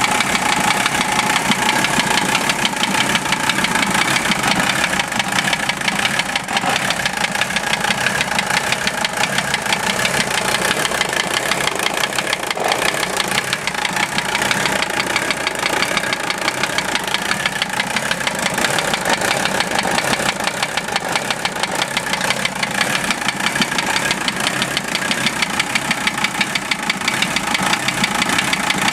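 Mercedes OM617 inline-five diesel idling warm with a steady, fast knock that keeps time with engine speed. Valve adjustment and cracking loose the injectors have not changed it, and the owner suspects the piston and connecting-rod area, most likely a bad wrist pin.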